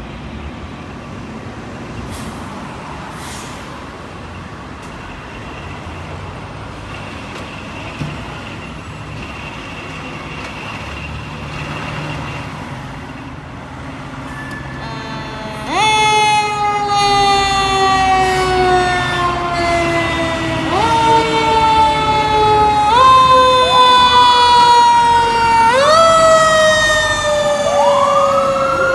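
Fire apparatus diesel engines running as the rigs pull out, then about halfway through a fire truck siren comes on loud: its pitch jumps up and slides slowly down, over and over, with a second siren rising in near the end.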